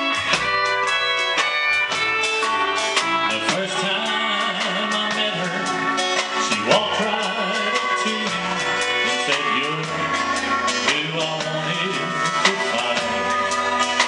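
Live country and polka band playing a tune: fiddle, pedal steel guitar, keyboard, upright bass and drums, with a man singing.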